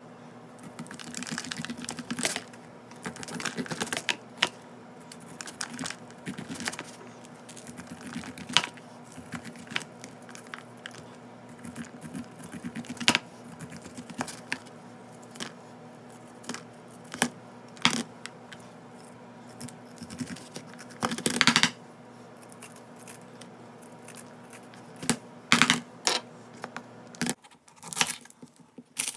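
Kitchen knife cutting corn kernels off the cob into a plastic bowl: irregular scraping strokes down the cob and sharp clicks of kernels and blade against the bowl. Near the end, the knife cuts through a shallot on a stone countertop.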